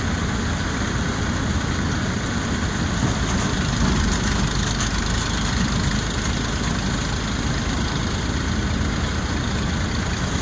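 Diesel tractor engine running steadily under load, powering a paddy thresher, with the thresher's drum beating the rice sheaves as they are fed in.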